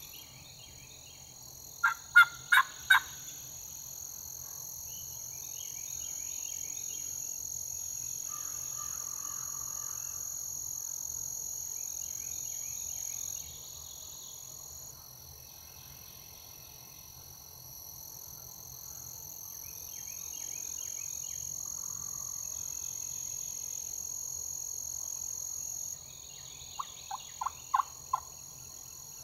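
Turkey yelps: a series of four loud, evenly spaced notes about two seconds in, and a second series of five notes near the end.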